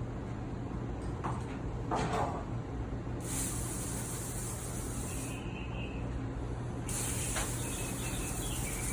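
Water spraying from a tap into a metal-lined sink. The spray comes on about a third of the way in, stops briefly just past halfway, then comes on again, with a few short knocks over a steady low hum.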